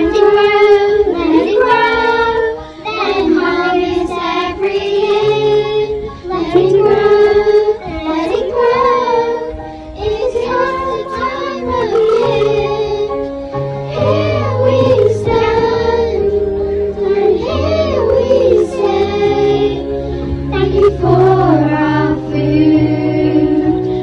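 A group of children singing a song together in unison over an instrumental backing.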